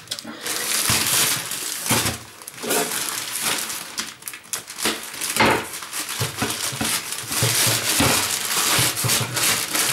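Packaging crinkling and rustling as it is handled, in irregular crackly bursts.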